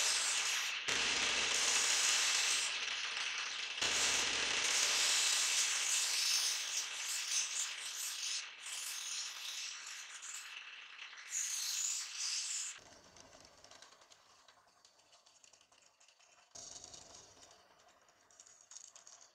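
Wooden knife-handle scale being ground against a spinning abrasive disc on a homemade disc sander: a loud hiss that breaks off briefly twice and stops about two-thirds of the way through. After that, only fainter machine noise from a bench drill press remains.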